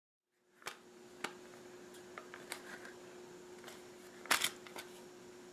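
Light plastic clicks and taps of a small calculator's plastic case being handled as its back cover is lifted off, starting after about half a second of dead silence; the loudest is a quick double click about four seconds in. A faint steady hum lies underneath.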